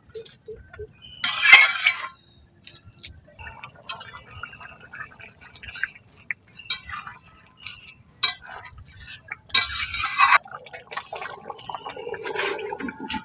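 Metal spatula stirring and scraping through a thin chicken-and-potato curry in a large aluminium wok, clinking against the pan's side with the gravy sloshing. Near the end a steel plate is set over the wok as a lid.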